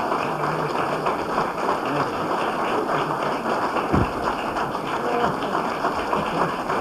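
Audience applauding, a dense, even patter of hand claps.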